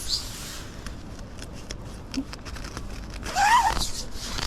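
Tent fabric being handled: rustling with many small clicks, and a short whine that rises and falls about three seconds in.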